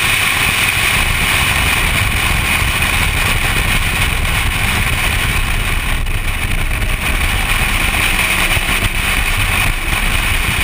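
Steady rush of wind over a camera mounted outside a BMW driven at track speed, buffeting the microphone, with the car's running noise underneath.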